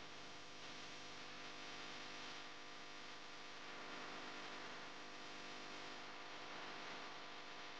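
Faint steady hiss with a low hum underneath: room tone, with no distinct handling sounds.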